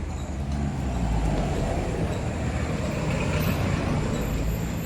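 A motor vehicle's engine running with a steady low rumble amid street traffic noise, with a faint steady high whine above it.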